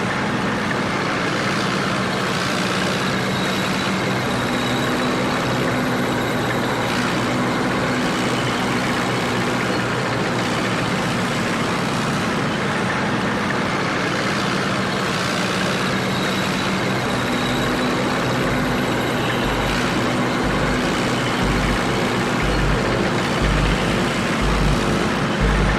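Steady road traffic noise from a queue of cars and buses, engines running with a low hum. In the second half a low, regular thump, about one a second, comes in and grows louder.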